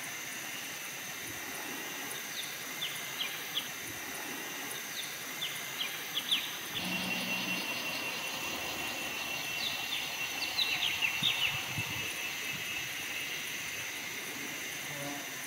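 Forest ambience: a steady insect drone, with birds calling in short sharp chirps in two clusters and a buzzy, rapid trill between them.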